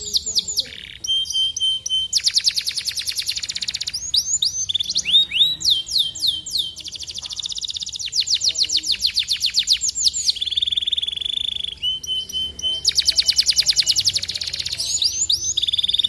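Domestic canary singing a long, loud song: fast trills of rapidly repeated notes alternating with series of downward-sweeping whistled notes, and a held buzzy note about ten seconds in.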